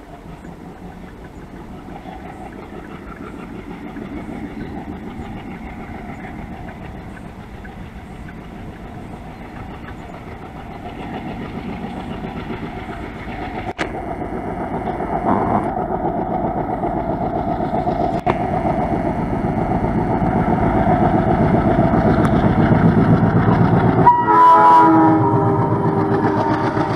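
WDM3A diesel-electric locomotive's 16-cylinder ALCo engine working hard as it hauls an express train toward the listener, its rumble growing steadily louder. About three seconds before the end it sounds a short horn blast of about a second and a half, then the locomotive and the first coach roll past close by.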